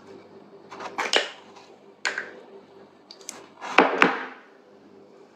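Clicks and taps of a small cosmetics pot being handled with the fingers. The loudest are two knocks close together about four seconds in.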